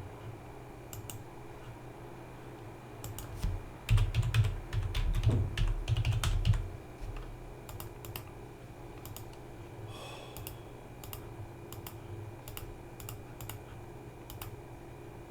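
Typing on a computer keyboard: scattered key clicks, with a quick run of louder keystrokes from about four to seven seconds in.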